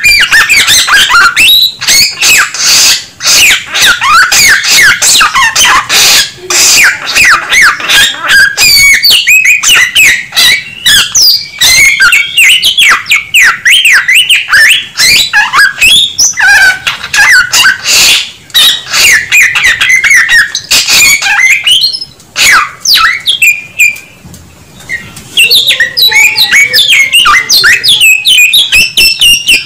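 Samyong songbird singing a loud, rapid, varied song of chattering notes, squawks and quick whistles with hardly a pause. It goes quiet briefly about three-quarters of the way through, then resumes.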